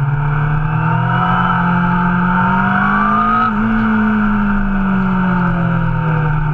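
Motorcycle engine running loudly, its pitch rising slowly to a peak about three and a half seconds in and then easing back down.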